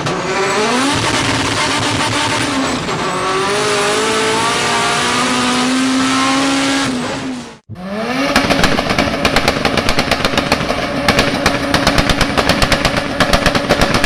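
Honda Civic VTEC four-cylinder engine revved hard, its pitch climbing, dipping once and holding high. About halfway through it cuts off abruptly, and a second Civic engine snaps up to high revs and holds there with a rapid, even stutter, bouncing off the rev limiter.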